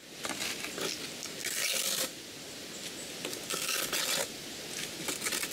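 Trowel scraping and pressing mortar into the gaps of concrete blocks, in several long scraping strokes.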